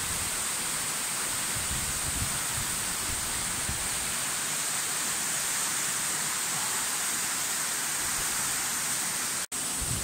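Waterfall pouring into its pool: a steady, even rush of falling water, breaking off for an instant near the end.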